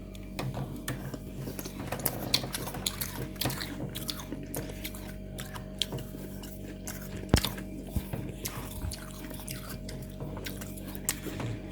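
Close-miked chewing of freezer frost, a dense run of sharp, crisp crunches and crackles, with one loud crunch about seven seconds in.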